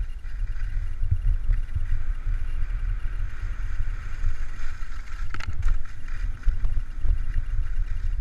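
Skis hissing as they slide over packed, tracked snow during a downhill run, under a gusty rumble of wind buffeting the microphone. A few light clicks come about five to six seconds in.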